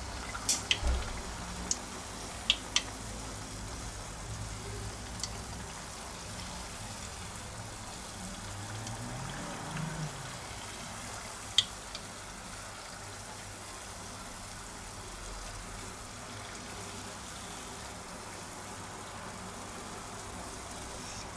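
Corn dogs deep-frying in hot oil in a stainless steel pot: a steady sizzle and bubbling. A few sharp clicks as the wooden skewers knock against the pot, several in the first few seconds and one near the middle.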